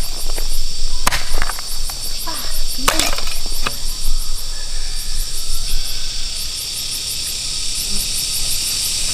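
Loud chorus of insects singing steadily, with a rapid pulsing trill on top, and a few sharp knocks from hand work in the first four seconds.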